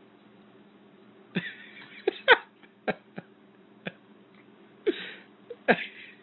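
A string of short, sharp huffs and clicks from a baby and a small dog tussling over a stuffed toy. The bursts come a second or so apart and are loudest about two seconds in and near the end.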